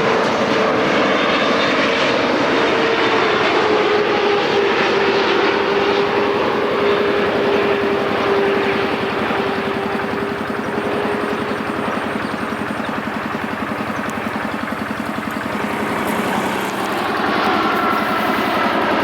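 Jet airliner's engines on a landing pass: a steady rush with one humming tone that slowly falls in pitch over the first ten seconds. It eases somewhat in the middle and swells again near the end.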